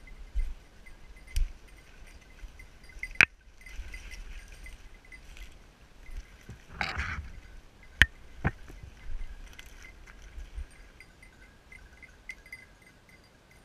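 The small bell on a hunting dog's collar tinkles irregularly through the scrub, with sharp cracks of snapping brush about three and eight seconds in and a short rustle of branches between them.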